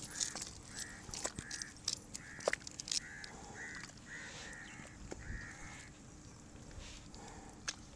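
A bird calling over and over in short arched notes, about two a second, thinning out in the second half. Scattered small clicks and wet splashes from hands working mud around a planted seedling.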